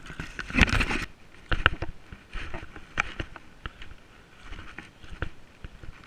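Irregular clicks, knocks and scrapes of handling and movement noise, with louder rustling clusters about half a second in and again about a second and a half in. These are bumps and rubbing on a body-worn action camera and steps on loose river stones.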